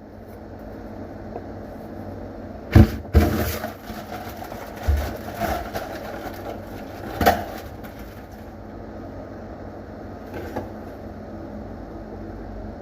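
A few sharp knocks and clatters over a steady low hum: the loudest about three seconds in, a second soon after, smaller ones over the next few seconds and another sharp knock a little past seven seconds.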